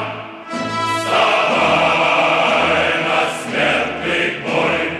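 Choral music: a choir singing long held notes, with short breaks between phrases near the start and near the end.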